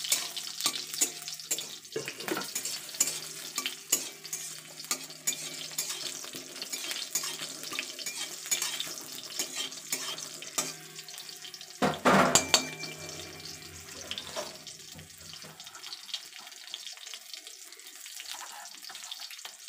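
Whole cumin seeds and green chillies crackling and sizzling in hot oil in a wok, with a spatula stirring and scraping in the pan. There is a louder clatter about twelve seconds in, and the crackling thins out toward the end.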